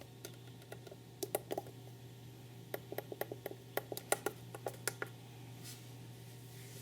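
Faint, irregular clicks, a dozen or more in quick clusters, over a low steady hum. The clicks stop about five seconds in.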